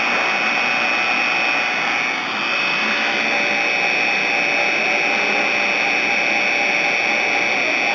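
CNC machine running: a steady motor whine over a loud hiss, dipping briefly about two seconds in.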